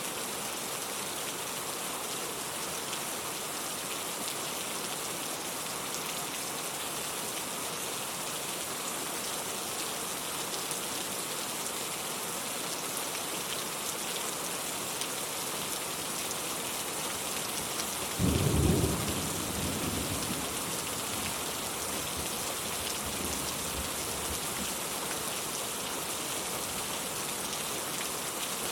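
Steady rain falling, with one sudden loud clap of thunder about two-thirds of the way through that rumbles away over a few seconds.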